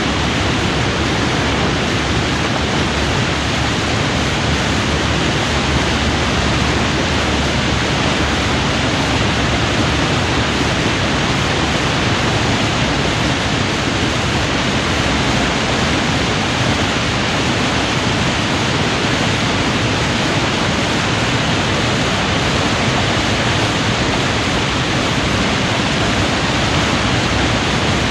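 Heavy water pouring over a weir in full flood: a steady, dense rush that does not let up.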